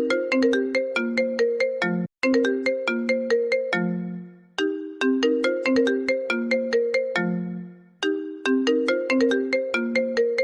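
Mobile phone ringtone: a short electronic melody of quickly fading struck notes, repeated every few seconds.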